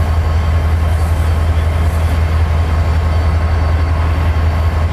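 CN diesel-electric locomotive idling, a steady low engine drone.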